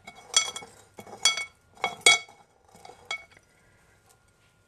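Metal spoon clinking against a ceramic dish of breadcrumbs as it is stirred: about five short ringing clinks in the first three seconds, the loudest about two seconds in.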